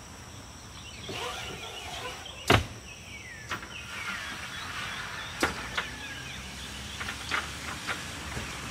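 RV roll-out awning arms being lowered: a sharp metallic click about two and a half seconds in, the loudest sound, then several lighter clicks and clacks as the aluminium arm is adjusted.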